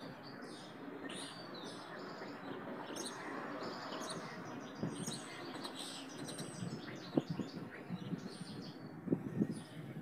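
Several small birds chirping and twittering in many short, high calls over a steady outdoor background hiss. A few brief low knocks come in the second half.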